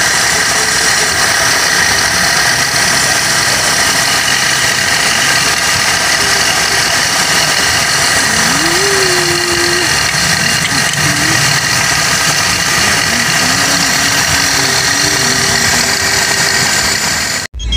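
Toyota Corolla engine idling steadily under the open hood, with the brake master cylinder right by the microphone. The sound cuts off abruptly near the end.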